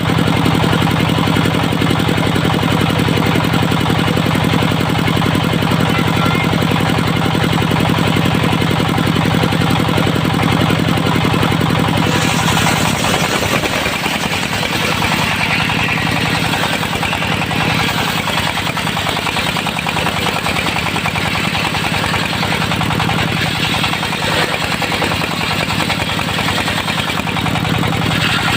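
Engine of a portable circular-saw sawmill running steadily. About twelve seconds in the sound changes: the low hum turns uneven and a higher hiss joins it.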